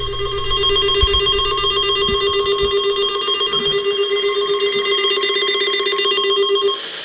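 Weather radio sounding its warning alarm for the NOAA Weather Radio weekly test: a loud, continuous electronic alert tone with a rapid trill, cutting off sharply near the end.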